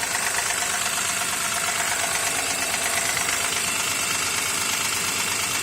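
Honda J35Z 3.5-litre V6 engine running steadily with a foreign knocking noise, an unfamiliar knock that the owner places somewhere toward the back of the engine.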